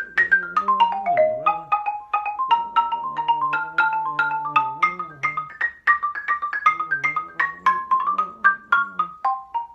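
Xylophone struck with mallets, playing a fast ragtime passage of quick single notes, about five or six strikes a second.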